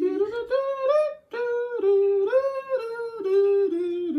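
A voice humming a wordless tune in held notes that step up and down, with a short break about a second in.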